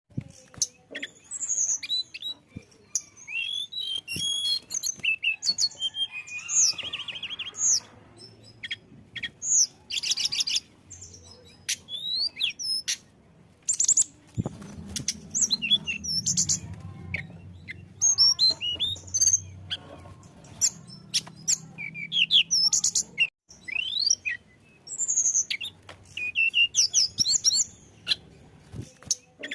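Tledekan gunung singing: quick runs of varied high chirps, sweeping whistles and short trills, broken by brief pauses.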